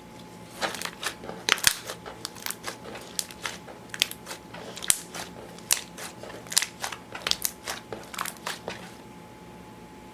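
Slime being squeezed and worked by hand, giving a run of irregular sharp pops and clicks from trapped air. They stop about nine seconds in.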